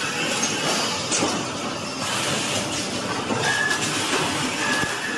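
Machinery of an A4 paper ream production line running: a steady clattering din with metallic clinks, and brief high squeals about three and a half seconds in and again near the end.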